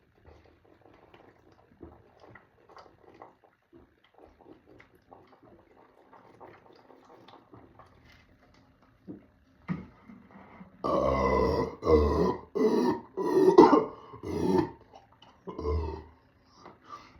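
A man belching loudly from carbonated soda: faint small clicks and rustles at first, then from about ten seconds in a rapid run of six or seven big, rough belches, one after another, with one more shortly after.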